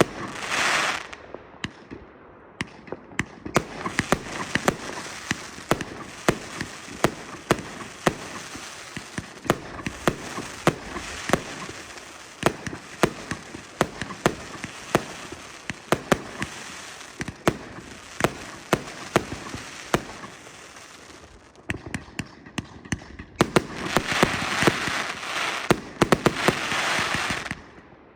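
Fireworks and firecrackers going off: many sharp bangs, at times several a second, over a steady crackle. A louder, denser fizzing crackle takes over for the last few seconds.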